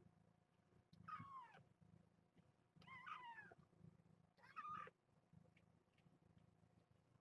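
Cat meowing faintly three times, each call short and falling away in pitch, about a second and a half apart, over a low steady hum.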